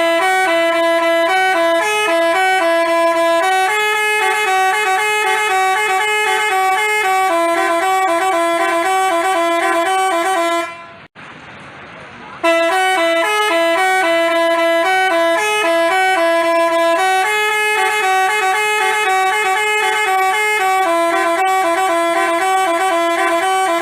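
Basuri telolet horn playing a tune in stepped, held horn notes. It cuts off about eleven seconds in and, after a short pause, plays the same tune again from the start.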